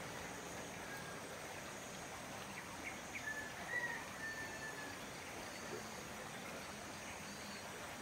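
Faint outdoor evening ambience: a steady soft hiss with a thin high insect drone, and a bird calling with a few short chirps and a brief whistle about three to four seconds in.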